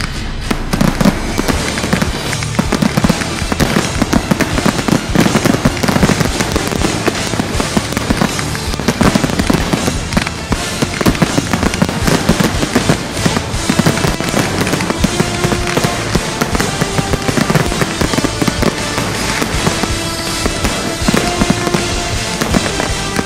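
Aerial fireworks display: a dense, continuous volley of bangs and crackling from many shells bursting in quick succession.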